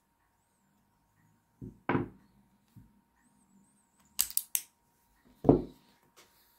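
Handling of an Arminius HW3 .32 S&W revolver: two dull knocks about two seconds in, then three quick, sharp metallic clicks a little past four seconds. A heavier thump, the loudest sound, follows about five and a half seconds in as the gun is set down on cloth.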